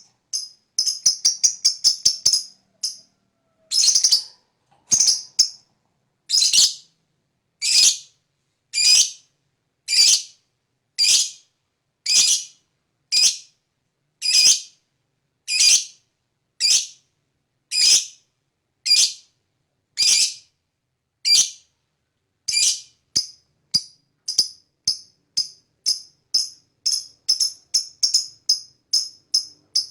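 Lovebird calling in short, shrill chirps: a quick run of rapid notes, then single calls about one a second, quickening again into a fast chatter near the end.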